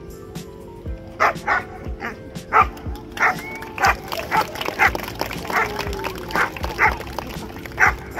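A dog barking in short, sharp barks, repeated every third to half second from about a second in, over background music with a steady beat.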